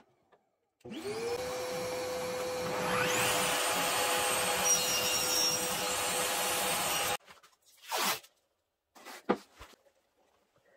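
Table saw starting up, its motor spinning up to speed and then running steadily, with the blade cutting a bevel along a wooden board from about three seconds in, which makes it louder. The sound stops abruptly about seven seconds in, followed by a few short knocks and rustles.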